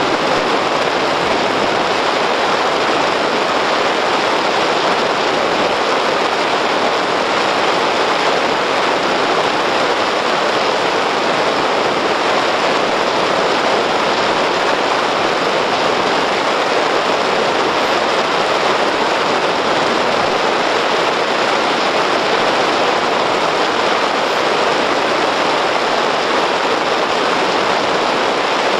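Steady, even rushing noise inside the cabin of a moving car, picked up by a dashcam microphone: road and tyre noise with no engine note standing out.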